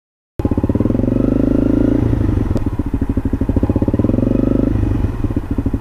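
Honda CRF250M supermoto's single-cylinder four-stroke engine running under way after a split second of silence. It pulls hard, eases off about two seconds in, pulls again, and eases off once more near the end.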